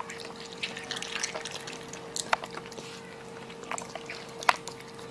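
Raccoon chewing grapes: irregular wet smacking clicks, with two sharper ones about two seconds in and near the end, over a faint steady hum.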